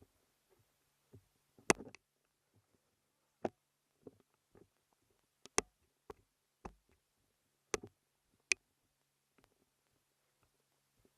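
Scattered sharp clicks and snaps, about seven at irregular intervals, over a faint low hum.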